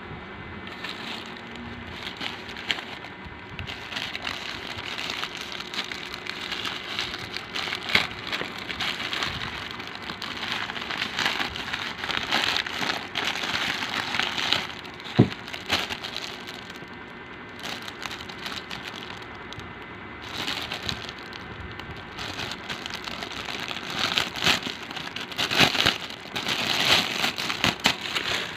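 Clear plastic packaging crinkling and rustling in the hands as a paracord handle is taken out of its bag. It comes in stretches, with a sharp click about fifteen seconds in.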